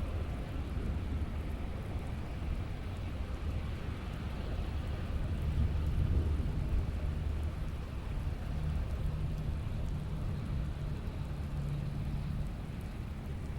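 Steady rain falling, with a low rumble of thunder that swells about halfway through.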